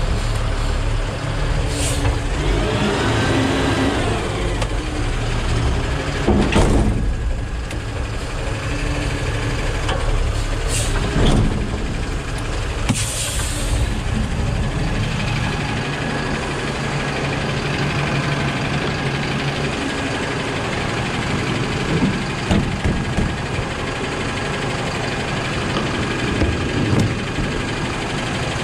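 Yard truck's diesel engine idling steadily, with several sharp metal clunks and a short hiss of compressed air about thirteen seconds in, as the trailer's air lines are being hooked up.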